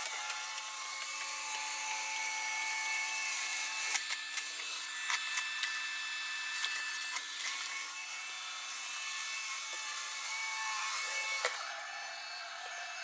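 iRobot Roomba j7 robot vacuum running across the floor: a steady whirring motor whine with its brushes scraping, several short sharp clicks between about four and seven and a half seconds in, and the sound dropping a little quieter near the end.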